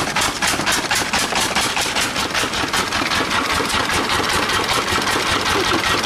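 Stationary flywheel engine running steadily, chugging in even beats at about six a second.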